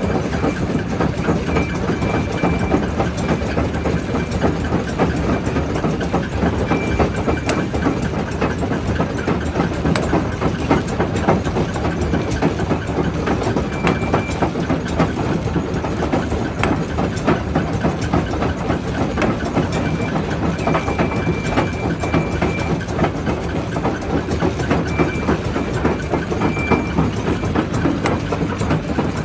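Quarry primary jaw crusher running under load: a steady heavy machine drone with a continuous irregular clatter of rock cracking and knocking in the jaws, and a faint high whine that comes and goes.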